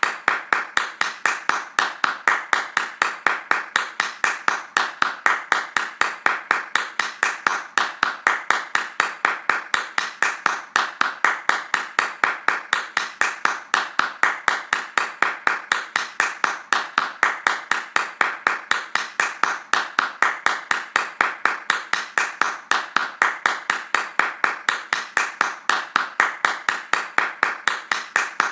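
Hands clapping fast in a steady, even rhythm of sharp claps.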